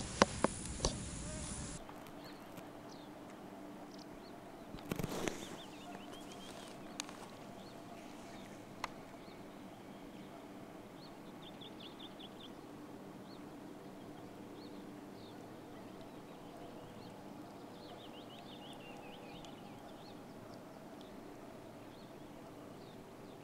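Quiet outdoor ambience by still water, with birds giving a few short, quick trills. There is a brief noisy burst about five seconds in.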